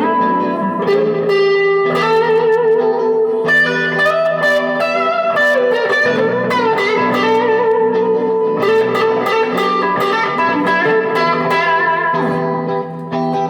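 Electric guitar played through a 1977 Fender Bassman 70 tube amplifier: ringing chords and single notes with bent, wavering pitches, played continuously.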